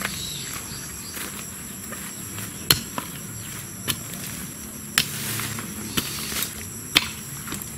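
Long-handled digging tool chopping into garden soil: sharp strikes about once a second, starting a few seconds in. A steady high-pitched insect buzz runs underneath.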